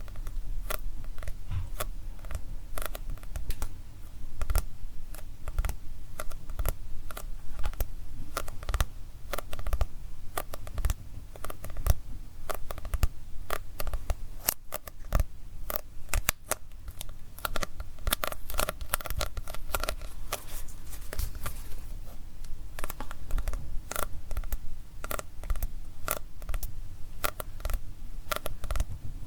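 Fingernails tapping on a manga book, a rapid, irregular stream of light, crisp taps.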